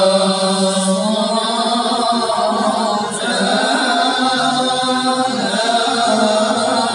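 Moroccan amdah nabawiya (praise songs for the Prophet) sung by a group of men chanting in unison, with a violin playing along. The voices hold long notes that bend slowly in pitch, without a pause.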